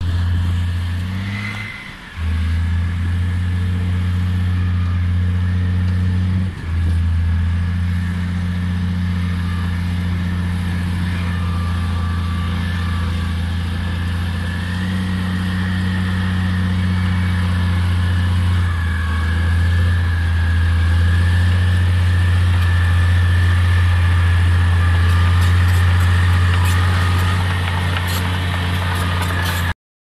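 Komatsu D65P-11 bulldozer's diesel engine working hard while pushing soil, a steady deep drone with a steady high whine over it. The engine note dips briefly about two seconds in and again at about six and a half seconds.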